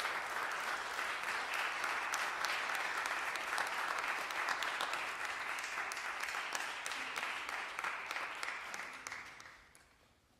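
Audience applauding, the clapping dying away about nine seconds in.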